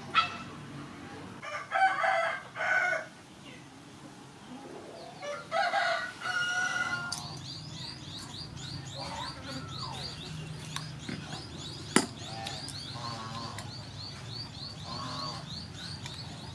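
Chickens calling: two loud calls about two seconds in and another around six seconds, with softer clucks later. From about seven seconds a small bird chirps rapidly and evenly at a high pitch, and there is one sharp click near twelve seconds.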